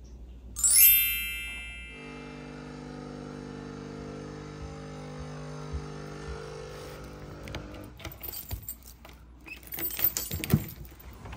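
Short intro music: a bright chime-like strike that rings away, then a held chord for several seconds, followed by a few scattered clicks and knocks.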